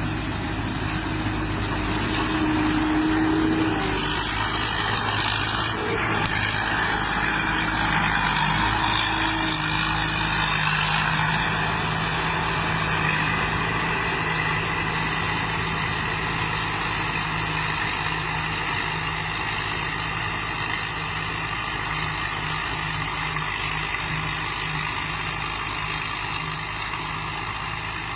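Rice combine harvester's engine running steadily, growing a little louder a few seconds in and easing back after about ten seconds.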